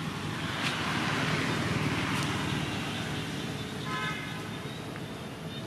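A road vehicle passing by, its noise swelling over a couple of seconds and then fading, with a short pitched sound about four seconds in.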